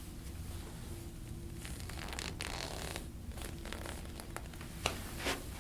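Hands rubbing and rustling over the body during a massage, in short uneven strokes, with a sharper scrape about five seconds in.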